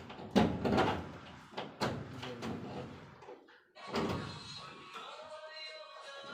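Sharp knocks and clatter with a man's voice, then about three and a half seconds in the sound drops out briefly and background music with steady held tones takes over.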